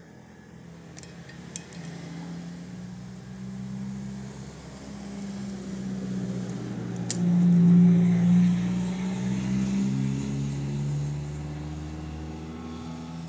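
A motor vehicle's engine running, its pitch slowly rising and falling and loudest about eight seconds in, cutting off at the end. A few light metal clinks sound near the start and about seven seconds in.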